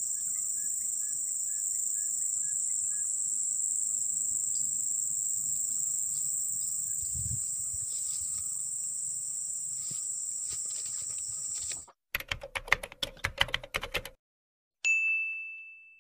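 A steady, high-pitched insect drone that cuts off about twelve seconds in, followed by a channel-logo sound effect: about two seconds of rapid, sharp glitch-like clicks, the loudest part, then a single ringing chime that fades away.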